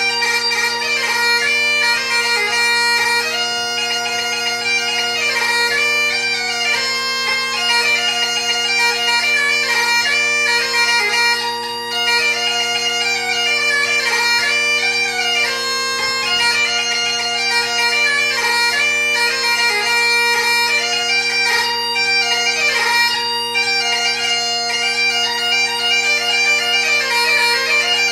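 Great Highland bagpipe playing a fast tune: the drones sound a steady chord under the chanter's melody, which moves quickly with many short grace notes.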